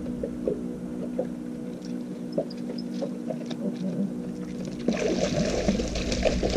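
A hooked fish being reeled to the boat thrashes and splashes at the surface from about five seconds in, over a boat motor's steady hum.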